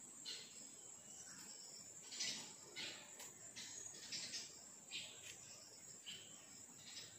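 Faint outdoor ambience with short, scattered high-pitched chirps coming at irregular intervals.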